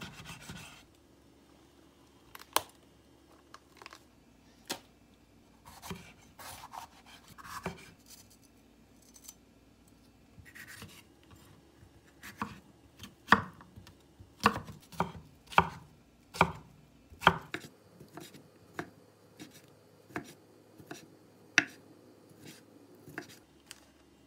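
Kitchen knife chopping on a wooden cutting board, cutting bacon and then a red bell pepper: irregular sharp knocks of the blade on the board, with a quicker run of louder strokes about halfway through.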